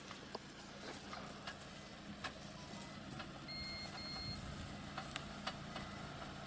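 A station wagon's engine running low as the car reverses, its reversing alarm giving a few short high beeps about halfway through.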